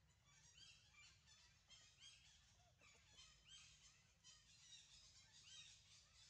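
Faint chorus of small birds chirping in the trees, quick high notes repeating over and over, over a low steady background rumble.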